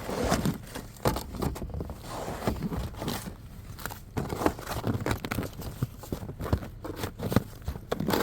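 Snow crunching and scraping in irregular short strokes as deep snow is cleared off the back of a pickup truck.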